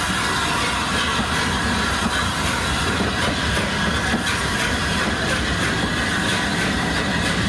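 Heritage railway train running on the rails: a steady rumble, with a rhythmic clickety-clack from about three seconds in.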